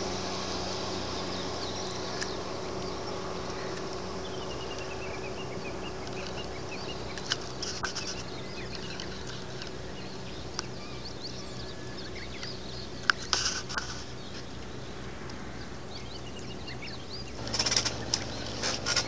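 Faint chirping bird calls over a steady low engine hum, with a cluster of sharp clicks and knocks near the end.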